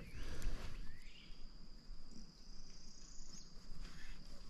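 Steady high-pitched insect trill, with two short rising whistles in the first second over a low rumble.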